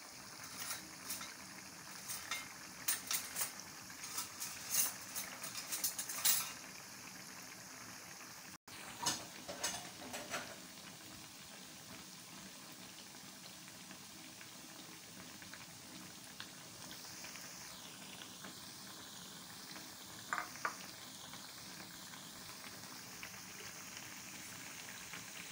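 Bakwan vegetable fritters deep-frying in a wok of hot oil: a steady sizzle, with spells of sharp crackling and popping in the first six seconds or so, again around nine to ten seconds, and briefly near twenty seconds.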